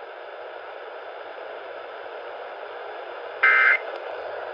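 Steady radio static hiss, then about three and a half seconds in a short, loud burst of the Emergency Alert System's two-tone SAME data signal. It is the first of the three end-of-message bursts that close an EAS test.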